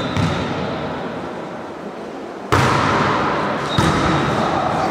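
Indoor volleyball: a sharp slap of the ball being served about halfway through, followed by echoing sports-hall noise as the rally gets under way.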